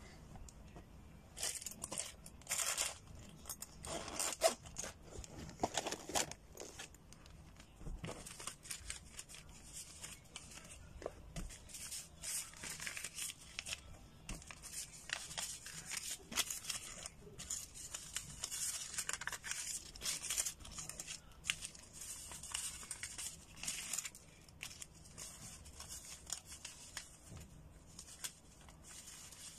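Crisp paper banknotes being counted by hand: the notes rustle and flick in a long string of short, sharp crackles.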